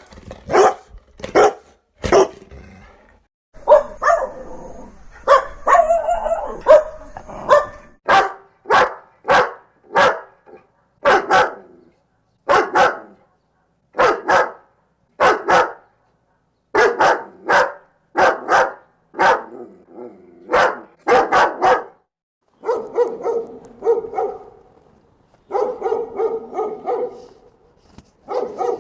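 Dogs barking loudly and angrily in a long run of short barks, singly and in quick pairs or threes. Twice the barking turns denser and overlapping, about four seconds in and again near the end.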